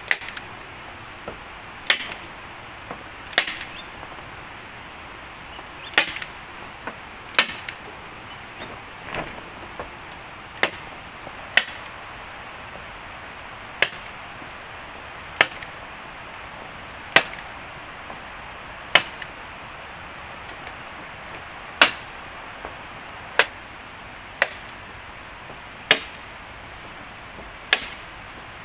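Wood being chopped, one sharp strike at a time, about one every one and a half seconds, over a steady hiss.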